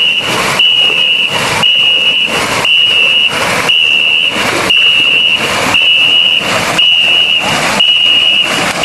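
Ngo long-boat crew paddling hard in unison: many paddles strike the water together in a steady rhythm of splashes, paced by a shrill whistle blown in short blasts about once a second.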